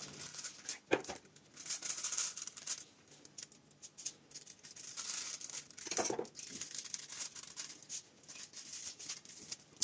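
Faint, irregular rustling and light clicks of hands working raw pork ribs on the counter, with a couple of sharper clicks about a second in and about six seconds in.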